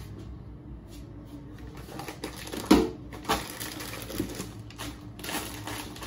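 Plastic bags and packets of groceries rustling and knocking as they are handled on a kitchen counter, with one sharp knock about two and a half seconds in and several smaller knocks and rustles after it.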